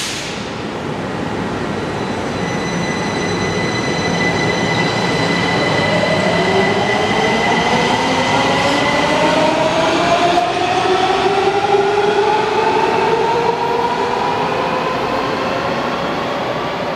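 Washington Metro 5000-series train pulling out of an underground station. Its traction motors whine in several tones that rise steadily in pitch as it accelerates, over the rumble of wheels on rail. The sound grows louder until the cars have passed, then eases slightly near the end.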